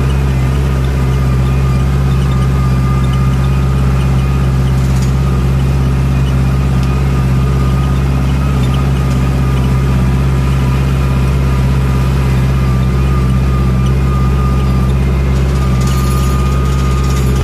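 Farm tractor's diesel engine running steadily while driving, heard from inside the cab, a constant low drone with a thin steady high whine over it.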